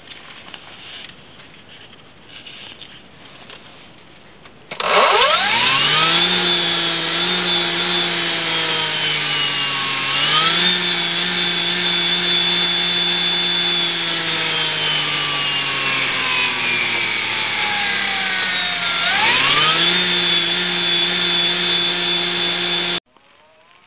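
Brushless DC motor of a homemade electric-car conversion, a Golden Motor HPM-10K run by a 72 V controller, whining as it spins up quickly about five seconds in. It holds speed, dips and climbs again, slowly winds down, then spins up once more before the sound cuts off suddenly near the end.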